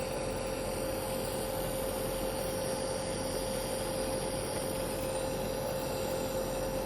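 Nebuliser compressor running: a steady hum with an even hiss of air, turning liquid medicine into mist for inhalation.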